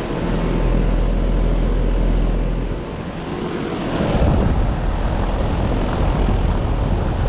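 A 2013 Trane XB13 outdoor air-conditioner condensing unit running steadily: the condenser fan's whoosh over a low hum. The level swells and eases a little partway through.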